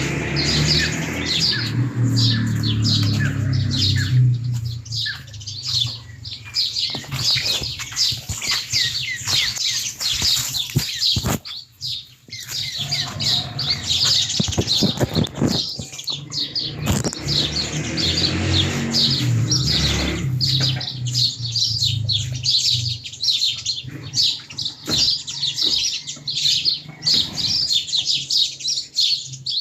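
Many small birds chirping and twittering continuously in a busy, overlapping chorus, with a low rumble underneath during the first few seconds and again midway.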